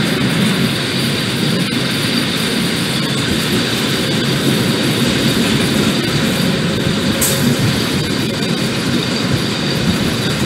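A long freight train of covered goods wagons rolling past, a steady rumble of wheels on the rails.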